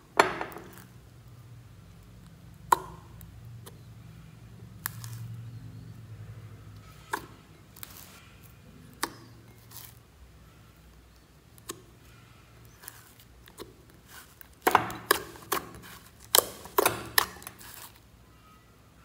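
Thick glitter slime being folded and stirred with a spatula in a glass bowl, giving scattered sticky pops and clicks every couple of seconds. Near the end a quick run of pops comes as the slime is pulled and stretched by hand.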